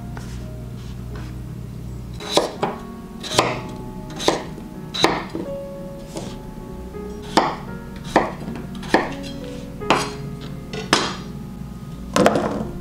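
Chef's knife cutting through peeled raw potato and knocking on a wooden cutting board, one chop about every second. Near the end, a quick cluster of knocks as the potato cubes drop into a pot.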